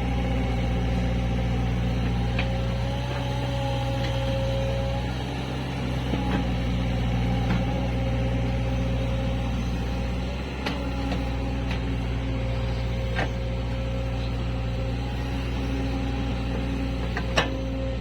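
CAT 305 mini excavator's diesel engine running steadily under work, with a pitched whine that comes and goes and several sharp clanks, including a louder one near the end.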